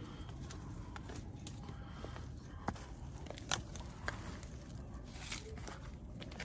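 Hand trowel scraping and digging through loose soil and twigs, with a few sharp clicks among the crunching and a steady low rumble underneath.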